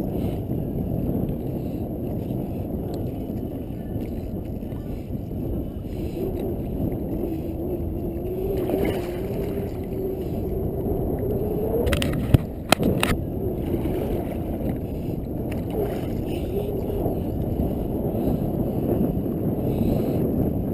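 Steady rumble of wind on the microphone and water lapping against a small plastic fishing kayak, with a faint wavering hum in the middle and two sharp knocks about twelve seconds in.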